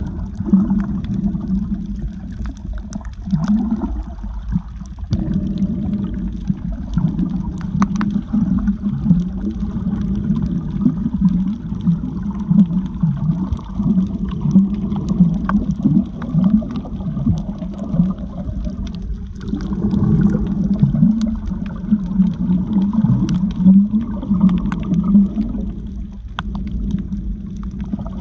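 Muffled underwater water noise around a snorkeler's camera: low, uneven gurgling and bubbling, with scattered faint clicks.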